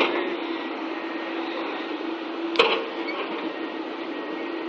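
Tracked hydraulic excavator's engine running steadily, a constant humming whirr, with one sharp click about two and a half seconds in.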